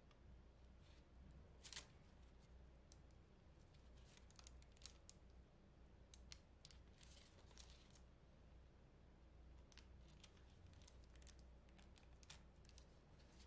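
Faint, scattered clicks and short crackles of a knife blade pressing down through a slab of soft homemade caramel onto parchment paper.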